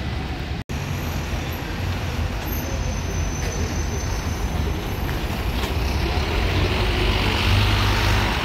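Bus engines running, a steady low rumble with road noise that grows louder over the last couple of seconds. The sound cuts out for a split second just under a second in.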